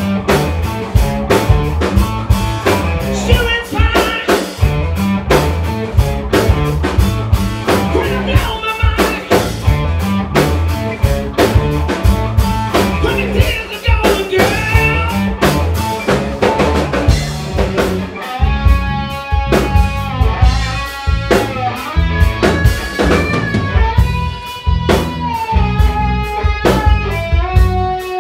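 Live rock band playing an instrumental passage: drum kit, bass and electric guitar. About two-thirds of the way through, an electric guitar lead comes forward with held, bending notes over the drums.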